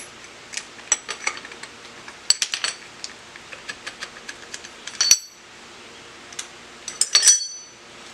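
Steel clamping hardware clinking and clanking as strap clamps are loosened with a wrench and lifted off a milling-machine table, with many small clicks and two louder ringing clanks, about five seconds in and again near the end.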